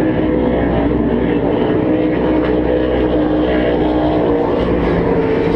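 Offshore race boats' engines running at speed in the distance, a steady multi-toned drone with no break.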